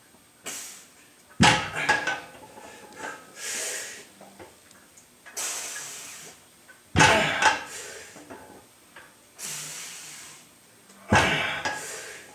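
Loaded weight plates hanging from a plumbing-pipe yoke squat bar set down on the floor at the bottom of Zercher squat reps: three heavy clanks, each with a short metal rattle from the pipe fittings, a few seconds apart, with quieter hissy rushes between.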